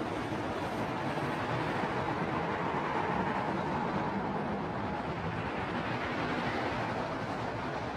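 A steady rushing, rumbling drone with no distinct tones, swelling slightly around the middle: an ambient noise bed laid under a tense film scene.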